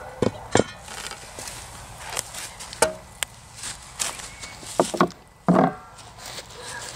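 A metal shovel digging and scraping in a fire pit of ashy charcoal: several sharp knocks and scrapes, with a longer scrape about five seconds in.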